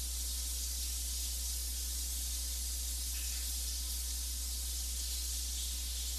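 Steady hiss with a constant low hum underneath: the background noise of the voice-over recording, with no other sound.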